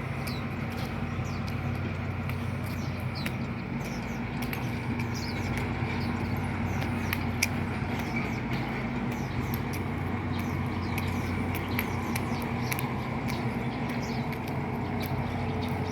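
An engine running at a steady speed, its low hum unchanging, with many short, quick chirps of small birds over it.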